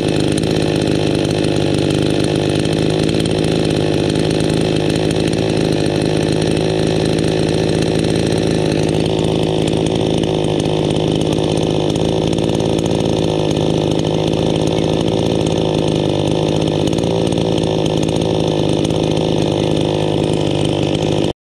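iBell two-stroke petrol chainsaw idling steadily with nobody at the throttle, cut off abruptly just before the end.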